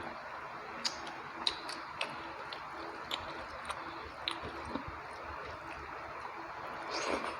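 Close-miked wet chewing and mouth sounds of someone eating rice with chicken curry: irregular soft smacks and clicks over a steady background hiss, a little louder near the end.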